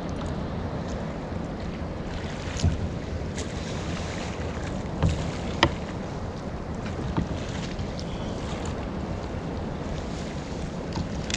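Wind on the microphone with water around a sit-on-top kayak, a steady low rumble and hiss. A few light knocks and clicks, with one sharp click about five and a half seconds in.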